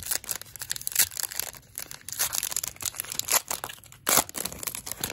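Plastic cello wrapper of a Panini NBA Hoops Premium Stock trading card pack being crinkled and torn open by hand: a dense, irregular run of crackling, with louder crackles about a second in and again just after four seconds.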